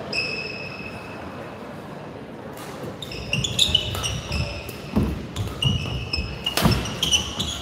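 Badminton rally: rackets strike the shuttlecock with sharp cracks, and court shoes squeak in short high chirps on the floor. The first few seconds are quieter before the rally gets going about three seconds in.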